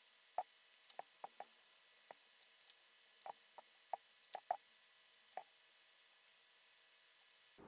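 Faint, irregular light clicks and taps, about fifteen of them, from a small screwdriver, wire ends and a small plastic terminal connector being handled and set down on a wooden floor.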